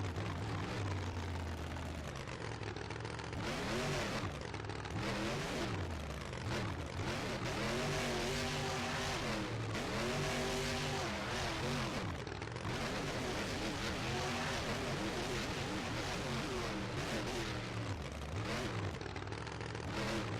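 A motor vehicle engine revving up and down again and again, each rev a rising then falling whine, over a steady low engine hum.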